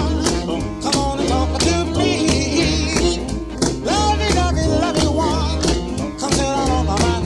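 Country-style song with guitar, a singing voice and a steady beat.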